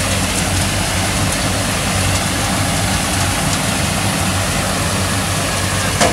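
Road sweeper truck running as it sweeps, giving a steady, loud mechanical drone with its rotating side brushes scrubbing the concrete. A few light ticks come through, and a sharper click near the end.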